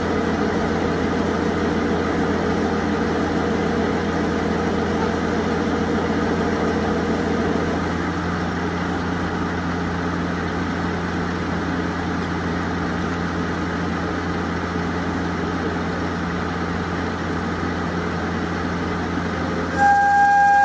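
JNR DD51 diesel-hydraulic locomotive's twin V12 diesel engines idling steadily at standstill, one higher note in the hum dropping away about eight seconds in. Near the end the locomotive's horn begins one loud, steady blast, the departure whistle.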